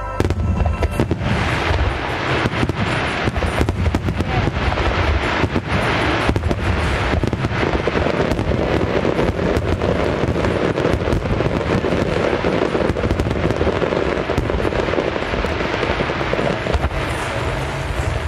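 Rapid barrage of aerial firework shells bursting: a dense, continuous run of bangs and crackles with a deep rumble underneath, thickest in the middle of the stretch.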